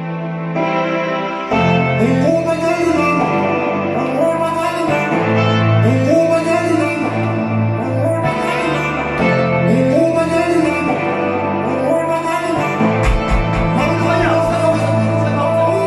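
Recorded dance music with singing, mixed live on a DJ controller and played through loudspeakers in a small room; a heavy bass line comes in about a second and a half in.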